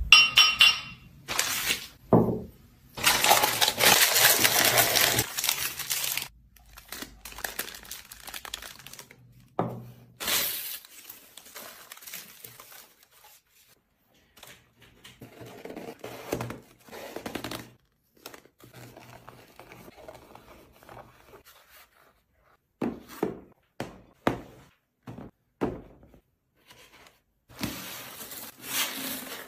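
Glassware being packed in foam netting: a brief ringing clink of a glass brandy snifter at the start, then repeated rustling and crinkling as foam mesh sleeves are stretched over the glass, with scattered soft knocks of items set down on a hard tabletop.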